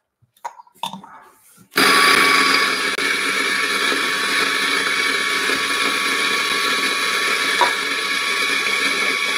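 After a few light clicks, a Turin DF54 flat-burr electric coffee grinder starts up about two seconds in and runs steadily, grinding a single 15 g dose of dark-roast espresso beans.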